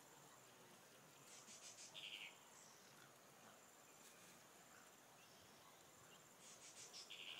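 Near-silent outdoor ambience with two short, high chirping phrases about five seconds apart. Each is a rapid run of clicks ending in a brief buzz, over a faint steady high hiss.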